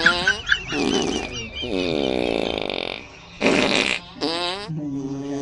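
A series of fart sounds, several short ones and one long one of over a second about two seconds in.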